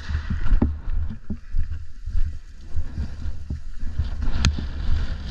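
Footsteps and brushing through tall dry grass, over a steady low rumble of wind buffeting a body-worn camera's microphone, with one sharp click near the end.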